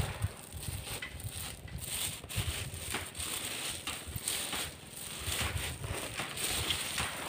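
Digging a pit in the ground: irregular crunching and scraping of earth.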